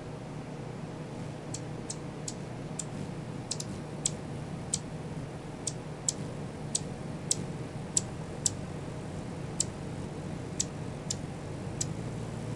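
Hummingbird giving a run of sharp, high chip notes, about two a second and irregularly spaced, starting a second or so in, over a steady low background hum.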